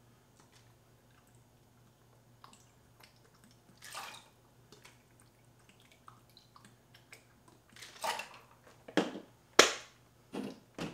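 Sour mix poured quietly from a plastic bottle into a metal cocktail shaker over ice, with faint ticks. It ends in several sharp knocks and clacks of bottle and bar tools being handled.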